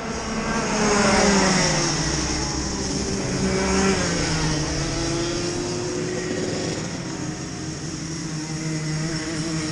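Two-stroke Rotax kart engines running as other karts go by on the track: the pitch falls as one passes about a second in and again at about four seconds, then slowly climbs as a kart accelerates away.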